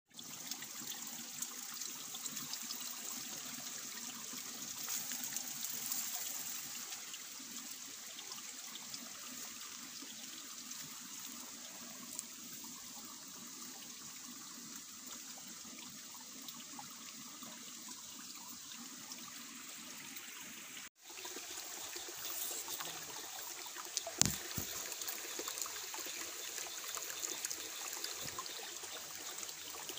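A small rocky stream trickling steadily. A couple of sharp knocks come about two-thirds of the way through.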